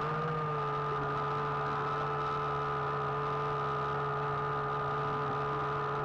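Small electric motor of an RC submarine whining steadily, heard underwater from a camera mounted on the sub. The pitch rises slightly in the first half second, then holds.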